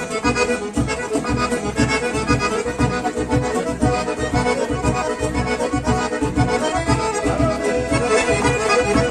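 Accordion-led bandinha dance music with a steady bouncing beat from bass and drums.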